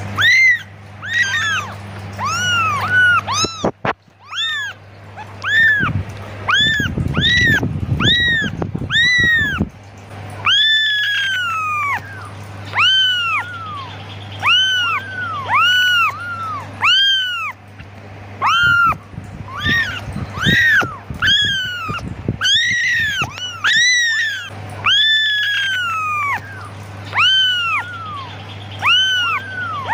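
Young kittens mewing over and over, high rise-and-fall cries roughly one or two a second, calling for their mother.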